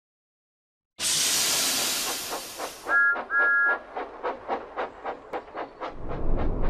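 Animated steam-engine sound effects for Thomas the Tank Engine: a loud hiss of steam starting about a second in, then two short toots of a two-note whistle, then steady puffing at about four chuffs a second. A low rumble joins near the end.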